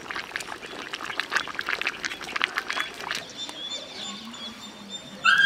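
Dense, rapid crackling and popping from chicken legs cooking in gravy in an iron kadai over a wood fire, thinning out after about three seconds. Thin high animal calls follow, the loudest one right at the end.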